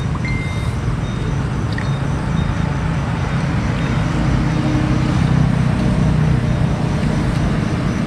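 Steady rumble of road traffic, swelling a little about halfway through as a vehicle passes.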